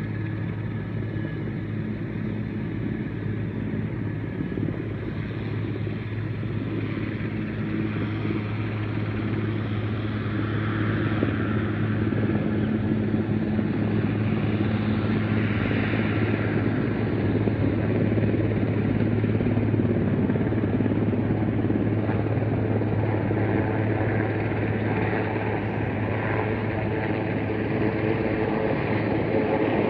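Helicopter hovering with a load slung beneath it: a steady rotor and engine drone with a low hum, growing louder about ten seconds in.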